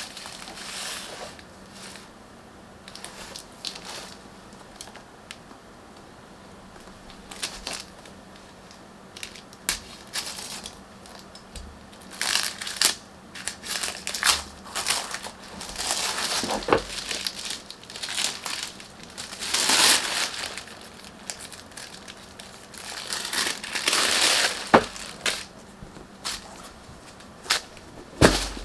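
Product packaging crinkling, crackling and rustling in irregular bursts as it is handled and opened.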